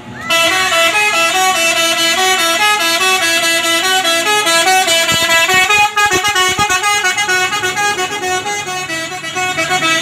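Bus telolet horn of the Basuri type, several horn tones sounding together in a quick tune of stepping notes, starting about a third of a second in and held loud.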